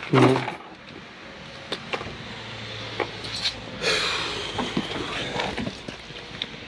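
Scattered knocks and clicks of someone moving about a van and its open doors, with a short loud sound just after the start.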